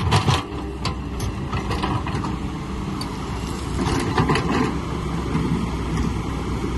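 Excavator engine running steadily under load, with sharp metallic clanks and knocks near the start and again around four seconds in.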